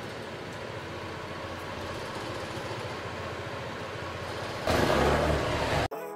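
SYM KRN scooter engine running steadily. It gets louder for about a second near the end, then cuts off suddenly and music begins.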